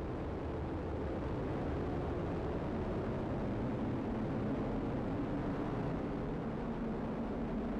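Atlas V rocket's main engine and solid rocket boosters rumbling steadily as it climbs just after liftoff: a deep, unbroken roar.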